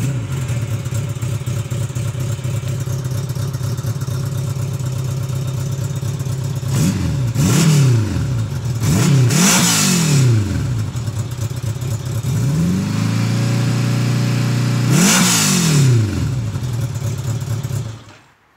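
1985 Honda Gold Wing GL1200's flat-four engine running through a MAC aftermarket exhaust: idling steadily, then revved in four quick throttle blips about seven seconds in, held at a raised speed, blipped once more, and shut off near the end.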